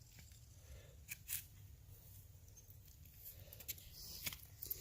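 A quiet room with a few faint, short clicks, about a second in and again near the end.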